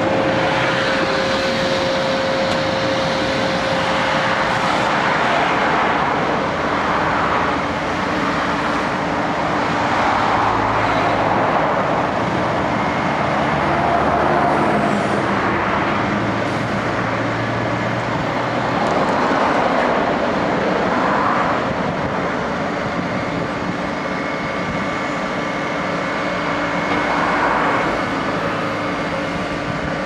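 Diesel engines of a Vögele Super 1800-2 asphalt paver and a Mercedes tipper semi-truck running together as the truck tips asphalt into the paver, a steady machinery din that swells every few seconds. A steady whine fades out after about four seconds.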